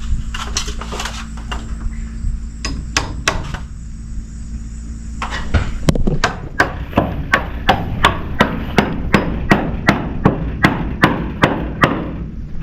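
Hammer blows on the timber framing: a few scattered strikes, then about halfway through a steady run of blows at roughly two a second.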